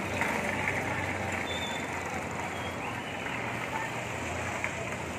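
Street ambience: a steady wash of traffic noise with no distinct events.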